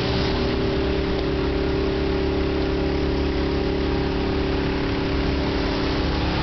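Hail falling steadily, a dense even hiss with a steady low mechanical hum underneath.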